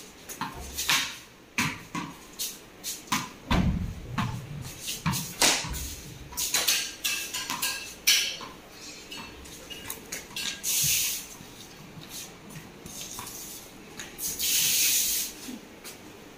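A ball being played with a wooden cricket bat on a hard tiled floor: a quick, irregular string of sharp knocks and taps as it meets the bat, floor and wall, thinning out after about nine seconds. Two brief hissing sounds follow near the end.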